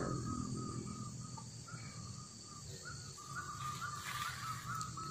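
Outdoor wildlife chorus: a quick repeated run of short chirping calls, strongest a few seconds in, over a steady high insect drone.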